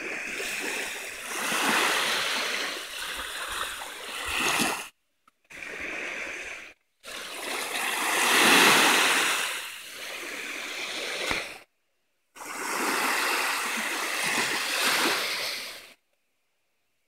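Small freshwater waves breaking and washing up on a sandy Lake Michigan beach, the sound swelling and fading with each wave and loudest about halfway through. The sound cuts out abruptly several times and is silent for about the last second.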